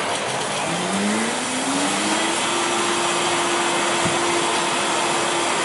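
Commercial smoothie blender with a sound enclosure running a smoothie: its motor spins up with a rising whine over the first couple of seconds, then holds a steady pitch over a steady rushing noise.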